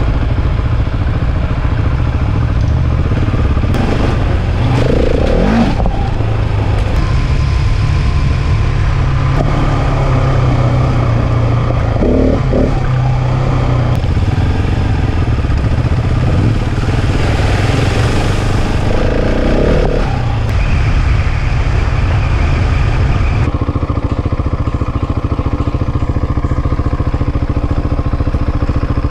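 Dual-sport motorcycle engine running under way with wind rush, heard from on the bike. The sound shifts abruptly a few times where clips are cut together.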